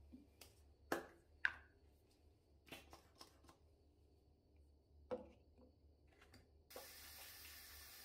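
Handling at a bathroom sink: a few sharp clicks and knocks as a foam-cleanser pump bottle is picked up and used. Near the end a tap runs into the basin for about two seconds as hands are washed.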